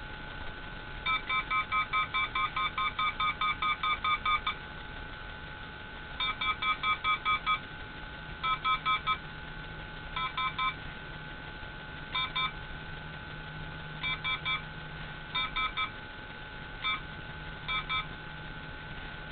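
Handheld RF detector beeping in bursts: a long run of quick beeps, about four a second, then shorter and shorter groups down to one or two beeps, over a steady high whine.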